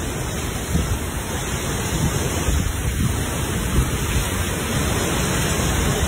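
Heavy rain driven by storm-force wind gusts: a loud, dense, steady rush with a gusty low rumble.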